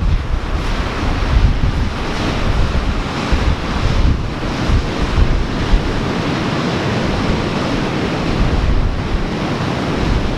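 Ocean surf washing in steadily, with wind gusting and buffeting the microphone in low rumbles.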